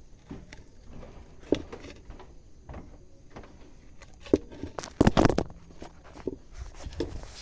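Wood fire crackling in a fireplace: scattered pops and snaps over a low hiss, with a sharp pop about a second and a half in and the loudest run of pops around five seconds in.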